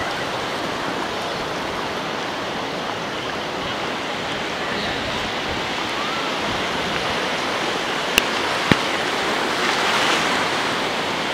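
Ocean surf washing up the shore, a steady rush that grows briefly louder near the end, with two sharp clicks a little past two-thirds of the way through.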